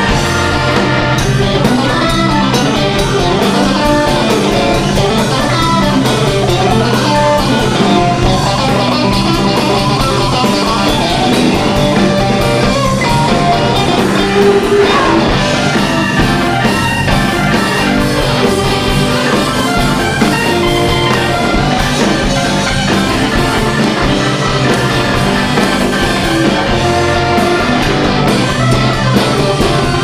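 Live band playing a funky rock groove: electric guitar and drum kit over a steady bass line, with Hammond organ in the band.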